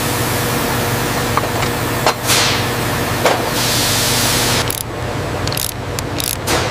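Factory floor ambience: steady machine hum and hiss, with a few sharp metallic clicks early on, then a quick run of clicks and taps in the second half.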